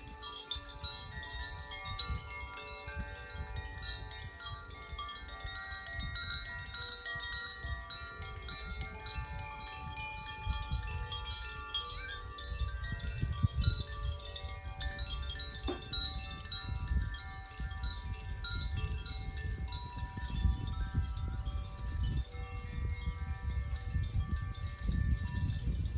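Hand-played tuned wind chimes sounding many overlapping ringing notes that sustain and blend into one another. A low rumble runs underneath and grows louder near the end.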